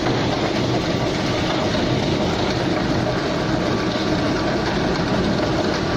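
Heavy-duty single-shaft plastic pipe shredder running, its rotor blades cutting plastic pipe and lumps into chips with a steady, dense grinding noise.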